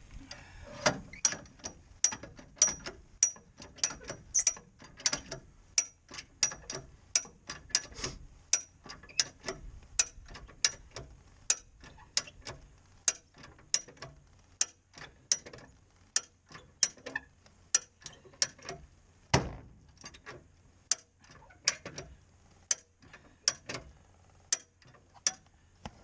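Ratcheting bumper-style jack being pumped by its handle, its pawl clicking in a steady run of sharp clicks about one and a half a second, with one heavier knock about three-quarters of the way through. The jack is pressing down on the tire's sidewall to break the bead from the rim.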